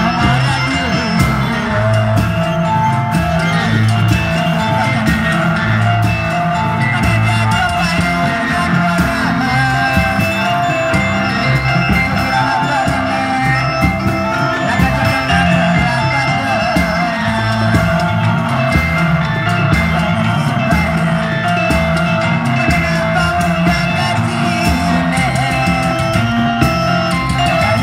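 Loud music with singing over a steady, repeating drum beat.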